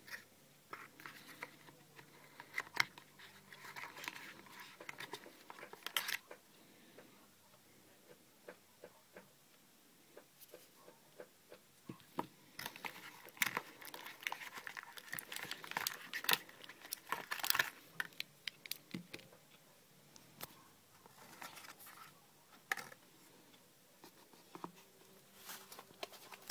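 An e-reader's cardboard box and its packaging being handled by hand: scattered rustles, taps and crinkles, busiest about halfway through.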